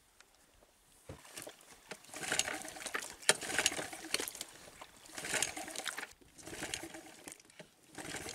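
Several short bursts of rattling, clattering noise, about four in all, with sharp clicks among them, as a small outboard motor on an inflatable boat is handled with its cowling off.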